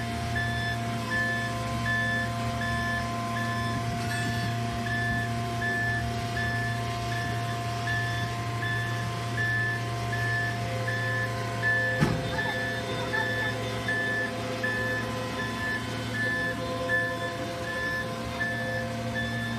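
Backup alarm on a Cat 262D skid steer loader beeping steadily, about one beep every three-quarters of a second, over the machine's running diesel engine. A single sharp knock about two-thirds of the way through.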